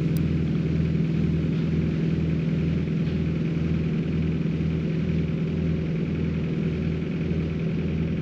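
International spreader truck's engine running steadily, a low drone with a throb about twice a second.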